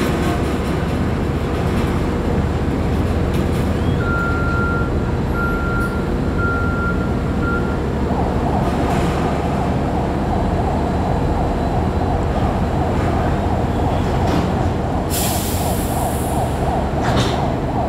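Steady low rumble of a ship-to-shore container crane and an idling terminal tractor while the crane's spreader sets a container onto the trailer. A run of five short high beeps comes a few seconds in, a mid-pitched machine whine starts about eight seconds in, and a short hiss of air and a few knocks come near the end.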